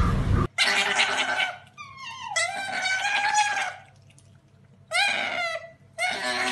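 A young otter's loud, high-pitched squealing calls, several in a row with short gaps, many of them sliding down in pitch, as it begs for food from a hand. Before the calls, a low outdoor rumble cuts off about half a second in.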